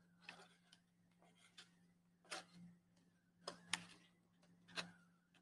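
Faint clicks and taps of paper pieces and a glue stick being handled while gluing paper teeth onto a paper plate, four or so sharper clicks in the second half, over a low steady hum.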